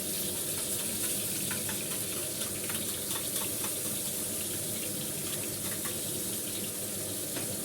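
Pork belly ribs with minced garlic and fermented black beans frying in hot oil in a wok: a steady sizzle with scattered small crackles.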